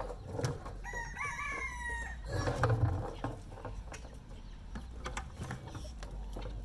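A rooster crows once, a call that rises and then holds for about a second, starting about a second in. A louder low rumble follows just after, with scattered light knocks throughout.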